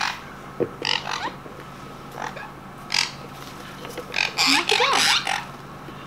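Sun conures inside a clear travel carrier giving a string of short calls and chirps, some gliding up and down in pitch, most crowded about four to five seconds in.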